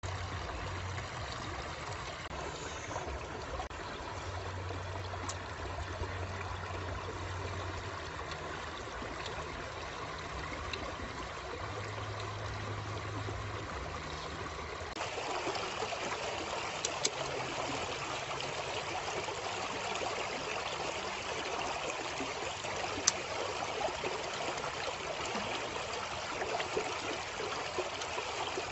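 Stream water rushing and trickling over rocks, a steady rush that turns brighter about halfway through. A couple of sharp clicks stand out in the second half.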